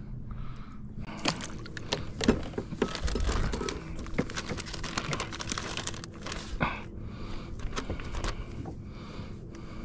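Close handling noise: a run of sharp clicks, knocks and crinkling rustles from about one to seven seconds in, with a dull thud about three seconds in.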